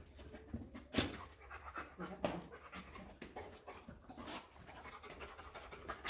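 A large dog panting, with a few short, sharp noises mixed in; the loudest comes about a second in.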